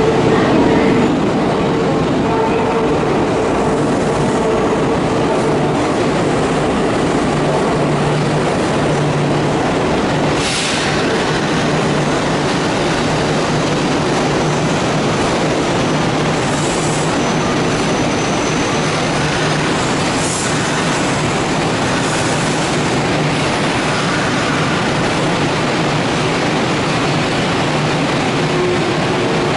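Kintetsu 1422 series and 2610 series electric train rolling slowly along an underground platform: a steady rumble of wheels and running gear with a low motor hum, echoing in the station. Brief high squeals of the wheels come about ten and twenty seconds in.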